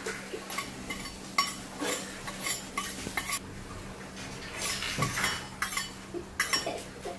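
Metal spoon tapping and scraping inside a small stainless-steel bowl, knocking salt out into a mixing bowl of flour: a string of irregular metallic clinks.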